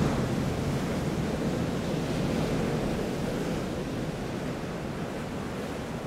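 Ocean surf: a steady wash of breaking waves, slowly fading toward the end.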